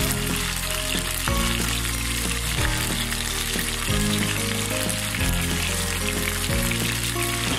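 Coated Bombay duck (loitta fish) pieces deep-frying in hot oil, a steady sizzle. Background music with low held notes that change every second or so plays along.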